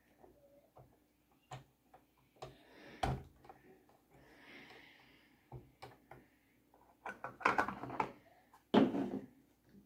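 Hard plastic toy playset pieces being handled: scattered small clicks and knocks, becoming a busier clatter near the end with one sharper knock just before it ends.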